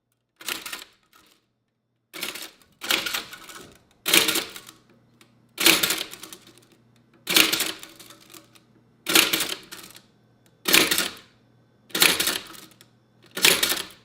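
1950s Toshiba Japanese-character typewriter printing characters one at a time: a heavy mechanical clack about every second and a half, each with a brief rattling tail.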